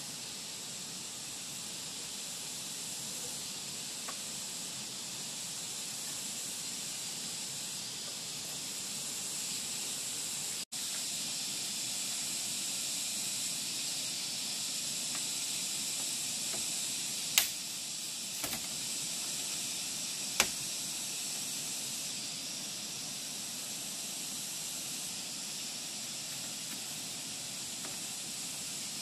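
Steady high-pitched hiss of a forest insect chorus, with three sharp knocks of bamboo being handled about two-thirds of the way through.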